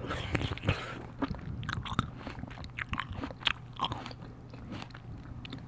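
Close-miked chewing and biting of food, with irregular wet mouth clicks and crackles right at the microphone. A steady low hum runs underneath.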